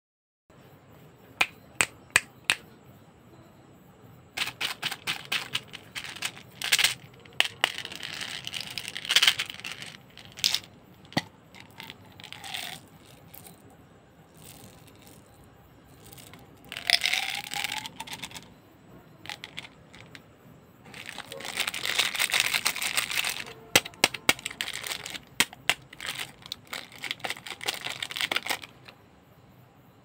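Candy packaging handled up close: sharp clicks and taps, plastic wrappers crinkling and tearing in several long stretches, and small sugar-coated chocolate candies rattling as they are poured into a hand.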